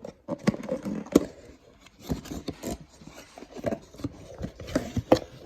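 A mug's box being opened and handled by hand: irregular taps, scrapes and rustles as the mug is taken out.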